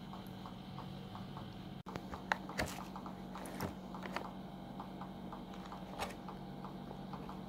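Plastic snack bag crinkling and crackling as fingers reach in and pick out a chocolate biscuit: scattered soft crackles, a few sharper ones about two to four seconds in and near six seconds, over a faint steady hum.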